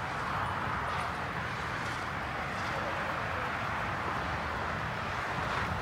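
Steady outdoor background noise: a low wind rumble on the microphone with distant, indistinct voices.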